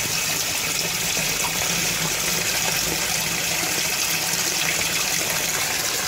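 Pumped water gushing steadily out of PVC pipework into an aquaponics fish tank, with a low steady hum underneath.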